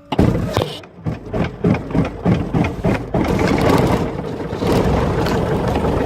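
Grumman light aircraft's piston engine starting: the propeller turns over with a run of separate uneven firing strokes, about three or four a second, then the engine catches and settles into steady running about three seconds in.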